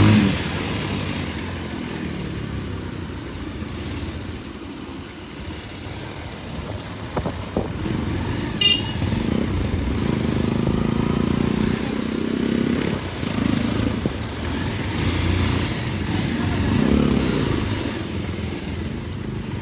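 Motorcycle engine running as the bike rides along a road, with a steady rush of wind noise over it.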